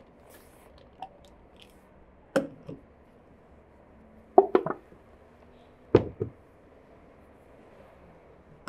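Filled glass canning jars with freshly seamed tin lids being handled and set down on a wooden table: a few sharp knocks and clunks, the loudest a quick run of three about halfway through, then another single knock a second and a half later.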